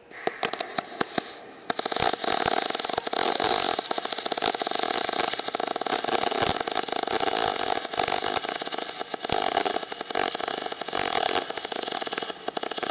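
MIG welding arc on aluminium from a MIG 250E welder: a steady crackling hiss. It starts faintly and grows loud about two seconds in.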